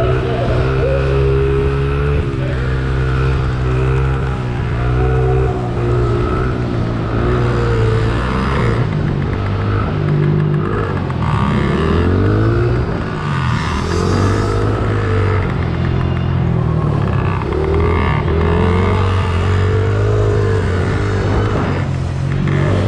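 Small 50cc youth motocross bike engine heard close up from on board, revving high and dropping back again and again through the turns and jumps.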